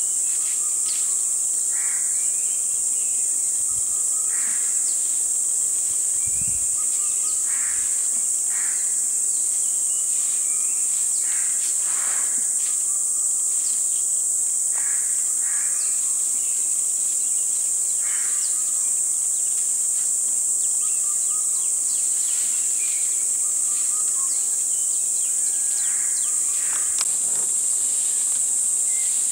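Steady high-pitched drone of an insect chorus, with short bird calls every few seconds.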